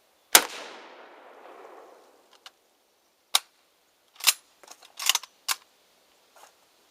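A single loud gunshot with a long echoing decay, followed a few seconds later by a quick string of shorter sharp clicks and knocks.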